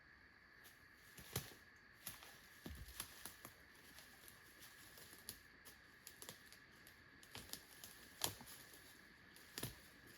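Irregular crunches and snaps of footsteps on dry leaves and twigs, scattered unevenly with clusters a few seconds apart.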